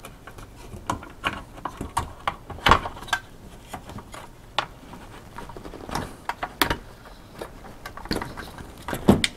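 Scattered clicks, knocks and light rattles as the stock blower cooler of an EVGA GTX 680 graphics card is worked loose and pulled off its circuit board, the strongest knocks about a third of the way in, past the middle and near the end.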